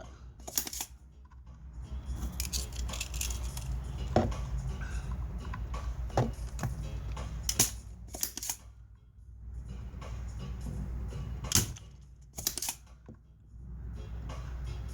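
Irregular sharp clicks and taps of hand tools working on an amplifier circuit board, about six over the span, over a steady low hum.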